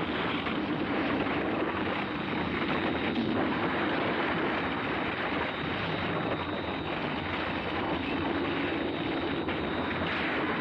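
Animated sound effect of a huge space fortress exploding and breaking apart: a steady, unbroken noise of explosions without separate blasts.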